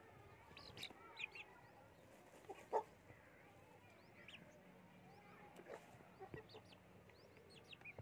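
Young aseel chickens softly clucking and giving short high peeps while pecking at grain, with a few sharp pecking taps, one louder about three seconds in.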